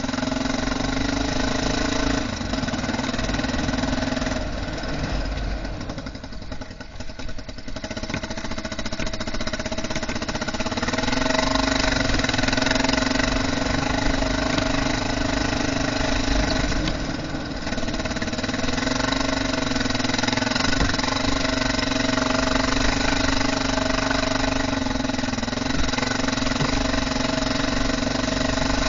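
Honda NX650 Dominator's single-cylinder four-stroke engine running steadily. The note drops for a few seconds near the start, then picks up again and holds.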